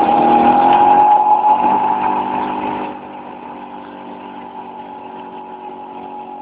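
Vespa scooter engine running steadily while riding on the road, heard from on board. It is loudest for about the first three seconds, then eases to a lower, even note.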